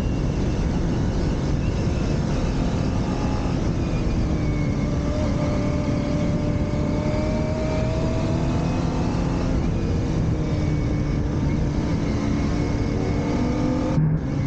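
Motorcycle engine running under way, its note rising and falling gently with the throttle, under a constant rushing noise.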